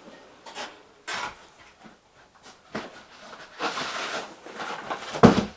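Cardboard box and packing being handled and pulled open: a series of short rustles and scrapes, then a heavy thump near the end.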